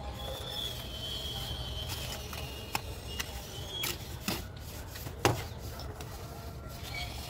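Plastering trowels scraping wet cement mortar onto a brick wall, with a handful of sharp clicks and knocks of the trowels in the middle of the stretch.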